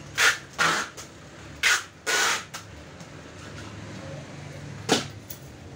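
Packing tape tearing off the roll in four short bursts as a cardboard box is sealed; the last and longest comes about two seconds in. A single sharp knock follows near the end.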